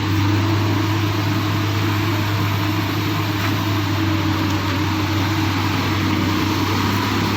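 Excavator's diesel engine running steadily with a constant low drone.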